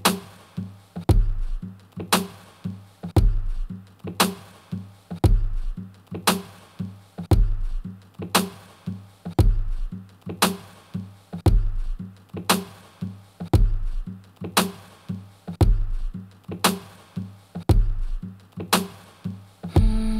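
Music with a slow electronic drum beat: a deep kick and a sharp hit about once a second. Near the end a held synth tone comes in.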